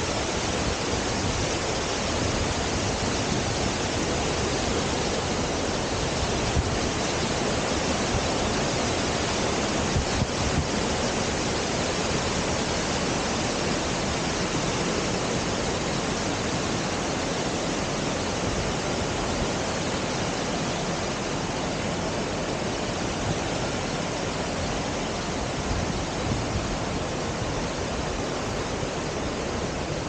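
Creek water rushing over rocky rapids: a steady, unbroken rush.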